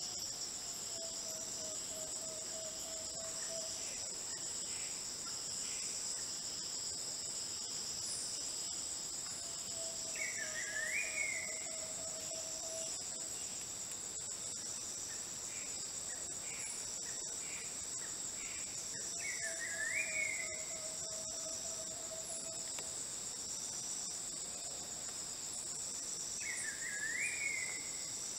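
Steady high-pitched insect chorus. A bird calls over it about every nine seconds, with a long, low, even whistle and a quick run of short rising notes.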